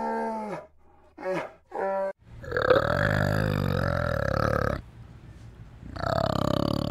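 Three short pitched calls from a bear. Then, from about two seconds in, a long, deep, burp-like rumbling vocalisation from an adult male orangutan with cheek pads. It breaks off briefly before a second rumble starts near the end.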